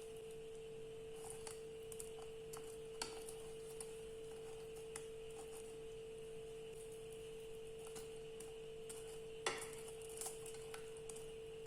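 Faint, scattered clinks and taps of kitchen utensils against a dish, the sharpest about three seconds in and about nine and a half seconds in, over a steady electrical hum.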